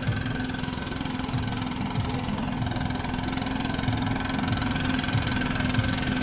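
A motor running steadily with a constant hum, over an uneven low rumble.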